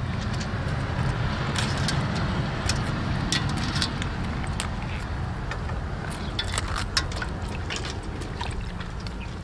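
Pickled mustard greens being swished, squeezed and lifted in water in a metal bowl by hand: irregular splashes, drips and small slaps of water, over a steady low rumble.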